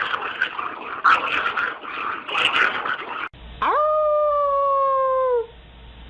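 A rough, irregular scratchy noise, then a dog's single long howl of about two seconds that rises quickly at the start and slides slowly down in pitch.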